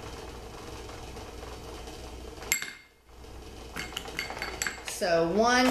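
A small utensil knocking and scraping against a small container while hardened crayon lip gloss is dug out. One sharp clink that rings on comes a little past halfway, then several quick clicks and scrapes about a second later.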